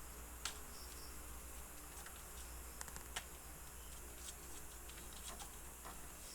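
Faint high chirping of night insects over a low steady hiss, with a few light clicks, the sharpest about half a second in and a small cluster around three seconds.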